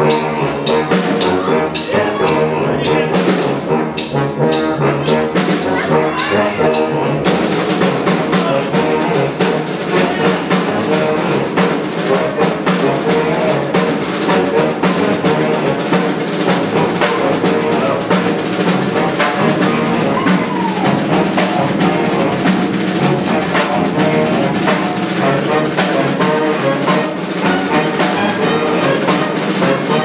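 Live brass band playing an upbeat tune: saxophones, trumpet, trombone and tuba over drums, growing fuller about seven seconds in.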